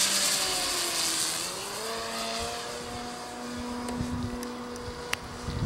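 Brushless electric motor and 15×8 APC propeller of a model Extra 300 aerobatic plane flying overhead: a droning hum that sags slightly in pitch, then rises about two seconds in and holds steady. A rush of air fades over the first two seconds, and there is a single sharp click about five seconds in.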